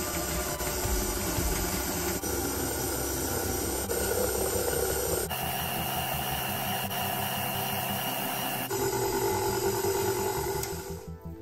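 Electric stand mixer running steadily while its dough hook kneads bread dough in a stainless steel bowl. Its sound changes abruptly about five seconds in and again near nine seconds, then fades at the very end.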